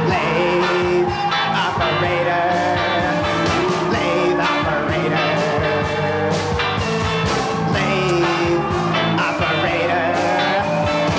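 Live rock band playing an instrumental passage between sung lines: drums keep a steady beat under the bass and a lead line that bends up and down in pitch.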